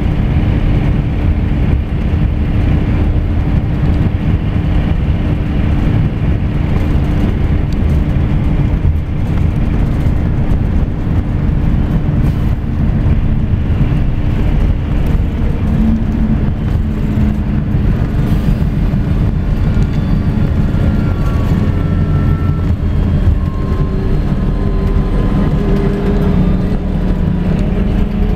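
Scania coach in motion, heard from inside the cabin near the rear: steady engine drone and road noise. A faint whine rises in pitch over the last few seconds.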